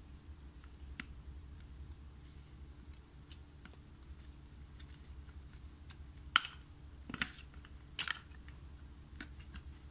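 Plastic end cap of a paint roller being twisted and pried off by hand, giving sharp plastic clicks: a faint one about a second in, then three sharper ones in the second half, over a low steady hum.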